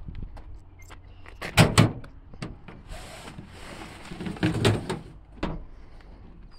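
Toyota pickup's tailgate being unlatched and let down: two sharp metal clunks about one and a half seconds in, a scraping rustle, then more knocks around four and a half seconds.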